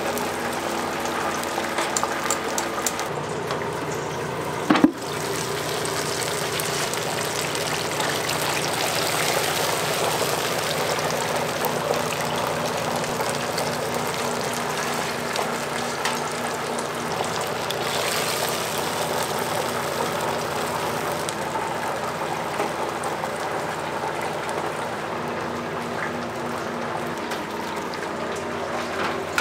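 Whole chickens frying in hot oil in an open pressure-fryer pot: steady sizzling and bubbling over a faint machine hum, with one sharp metallic clank about five seconds in.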